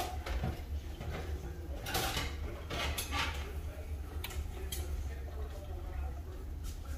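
Butter crackling and popping under grilled cheese sandwiches frying in a nonstick pan: scattered short crackles, a cluster of them about two to three seconds in, over a steady low hum.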